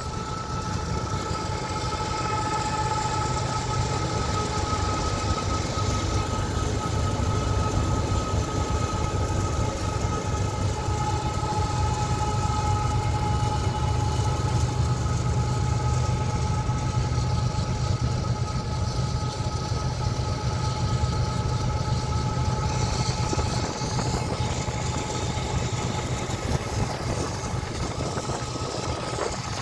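Freight train with a GE diesel locomotive rolling by, heard from a car keeping pace with it: a steady low rumble of locomotive and wheels mixed with road noise, with two steady whining tones throughout.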